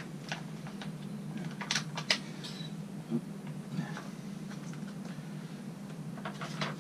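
Plastic sealant pouch being squeezed over a tyre valve, giving a few faint crinkling clicks, twice, over a steady low hum.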